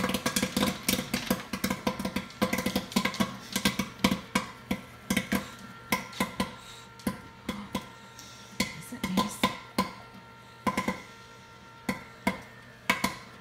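Popcorn kernels popping in the kettle of a cart-style popcorn machine: a dense, irregular crackle of pops for the first several seconds, thinning to scattered single pops as the batch nears done.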